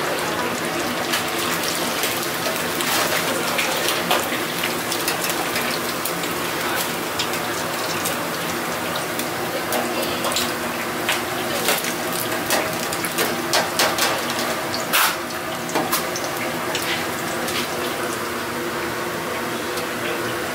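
Hot oil sizzling and bubbling in a deep fryer as battered pig's trotters fry in wire baskets, with a dense crackle throughout. In the middle part the metal fry baskets clink and rattle as they are lifted and shaken over the oil.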